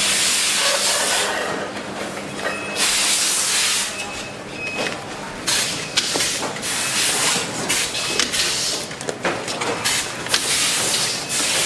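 Production-line pneumatic equipment on a factory floor: repeated bursts of compressed-air hiss that start and stop sharply, some short and some about a second long, with scattered clicks over a steady machine hum.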